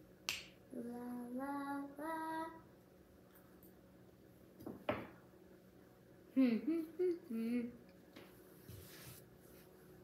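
A girl singing or humming to herself in two short phrases: a couple of held notes stepping up in pitch, then a few quick sliding notes about six seconds in. A sharp click comes just after the start and a short noise near the middle.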